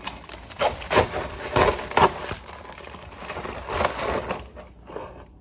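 Padded Amazon Prime mailer being torn open by hand: several sharp rips in the first two seconds, then crinkling and rustling of the package about four seconds in.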